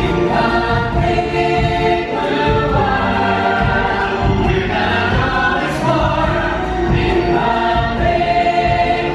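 Musical theatre song: several voices singing together in sustained notes over musical accompaniment.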